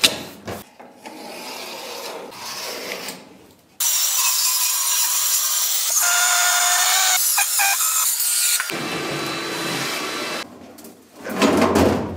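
Duct tape being pulled off the roll: a loud, screechy ripping that starts suddenly about four seconds in and lasts about five seconds, with shifting squealing tones in it. Softer handling and tearing sounds come before and after it.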